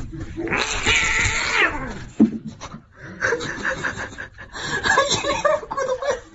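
A cat gives a long, loud meow that falls in pitch at the end, followed by a person laughing in short bursts.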